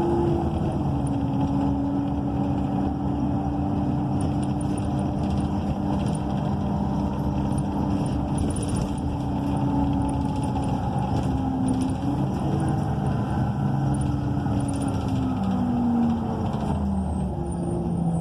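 Inside a moving ENC EZ Rider II transit bus: its Cummins Westport ISL G natural-gas engine and Allison B300R automatic transmission running over road noise. The hum has several tones; its pitch drops soon after the start, rises about twelve seconds in and falls again a few seconds later as the bus changes speed.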